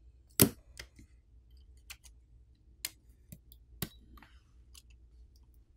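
Faint, scattered clicks and ticks, about eight spread unevenly over several seconds and the first the loudest, as fingers handle the opened Google Pixel 7 Pro and pull on its battery pull tabs.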